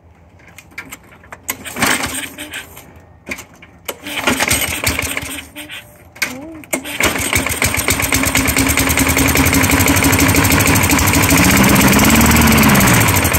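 Craftsman push mower's 4.5 hp Tecumseh engine being pull-started after priming: scattered knocks and sputters for the first few seconds, then about seven seconds in it catches and runs steadily, revving up and back down once near the end.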